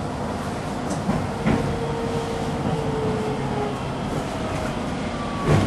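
Hiroshima Electric Railway streetcar running slowly, heard from inside the car: a steady rumble of wheels on rails, a faint held tone about a second and a half in that lasts about two seconds, and a few knocks, the loudest near the end.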